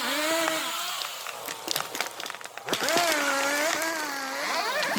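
Chainsaw running at high revs in two long pulls, about a second and a half and then about two seconds, its pitch rising, wavering under load and dropping away, with scattered clicks between.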